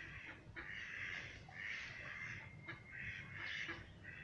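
Birds giving harsh, raspy calls, several in quick succession, each lasting about half a second.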